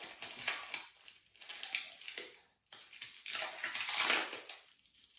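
Plastic protective packaging crinkling and rustling as it is pulled off a hoverboard, in several uneven bursts, loudest a little over three seconds in.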